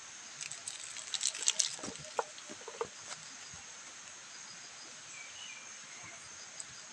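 Short rustling and light crackling clicks of hand handling near the plate in the first three seconds, over a steady high insect drone. A few faint short chirps come about five seconds in.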